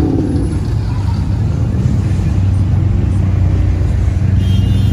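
Cars driving slowly past one after another, their engines and exhausts giving a steady, loud low rumble; a white Dodge Charger goes by near the end.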